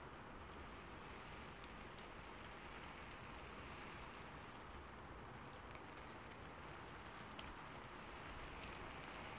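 Faint, steady scratchy hiss of a flat paintbrush rubbing and dabbing acrylic paint on a textured canvas board, with a few light ticks.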